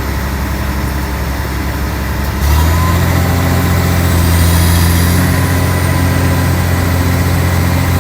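Komatsu long-reach excavator's diesel engine running, stepping up to a louder, heavier note about two and a half seconds in and holding there.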